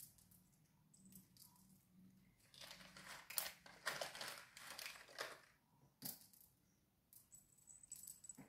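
Several cats crunching dry food off a tile floor: a dense run of quick crackly crunches in the middle, then a single sharp click about six seconds in, with scattered small ticks around it.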